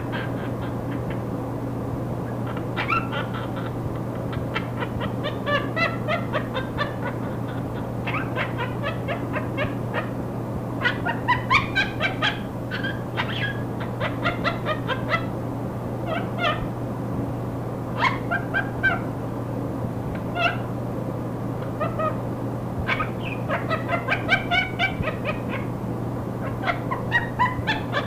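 Monk (Quaker) parakeet laughing hysterically: clusters of quick, pitched 'ha-ha' pulses in fits of a few seconds with short pauses between. A steady low hum and static hiss from the recording run underneath.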